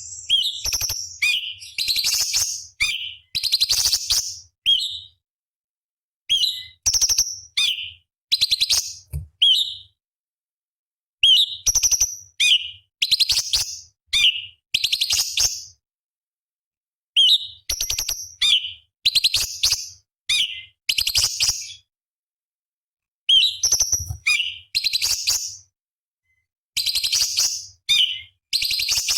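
Cucak cungkok, an orange-bellied leafbird, singing in six bouts of a few seconds each: fast, high chirps, quick sweeping notes and dense trills, with short silences between the bouts.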